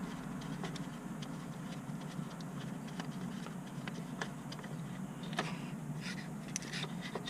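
Ratchet wrench and socket loosening a nut on a car starter: scattered light metallic clicks and taps at an irregular pace, over a steady low background hum.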